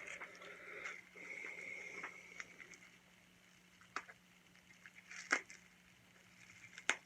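Faint rustling of packaging for about two seconds, then a few separate sharp clicks and taps from speed cubes and their boxes being handled.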